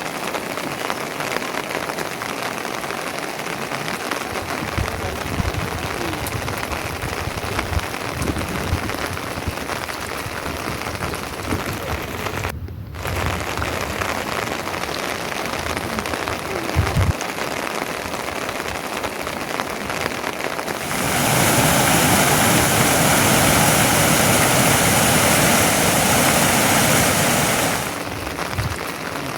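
Steady rain falling. About two-thirds of the way through it turns much louder and heavier for some seven seconds, then drops back.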